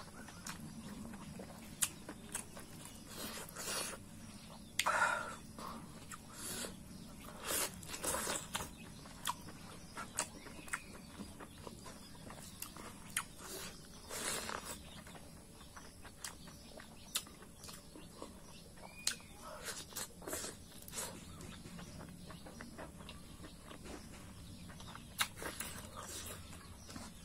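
A person eating rice and beef curry by hand, with irregular wet smacks and chewing sounds as each mouthful goes in.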